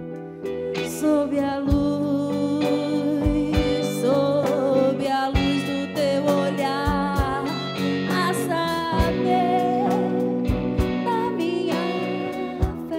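Live band playing an instrumental break: held guitar chords and bass under a lead melody line with vibrato, and low drum hits.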